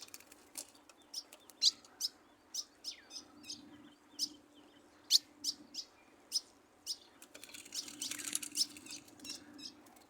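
A caged songbird calling a long series of short, sharp chirps, one or two a second, running into a denser twittering near the end, with a faint steady hum underneath.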